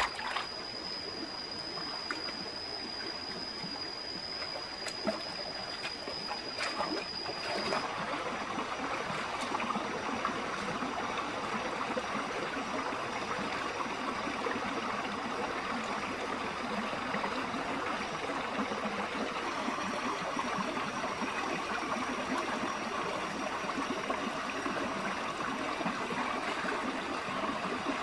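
Shallow rocky stream flowing and trickling over stones, a steady water noise. For about the first eight seconds a thin, steady high whine sits over it, then stops.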